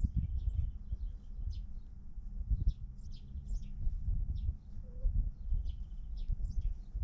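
Birds chirping: many short, high chirps and twitters, repeating irregularly, over a low rumbling background noise.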